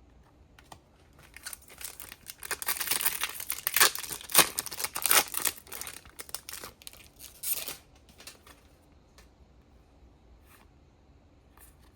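Pokémon booster pack wrapper being torn open and crinkled, a dense crackling from about a second in that stops near the two-thirds mark, followed by a few light clicks of the cards being handled.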